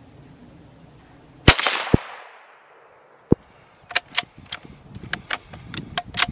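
A single rifle shot: a sharp crack with a short ringing tail, and a second, shorter crack about half a second later. Then a lone click, followed by a run of about a dozen sharp clicks over the last two and a half seconds.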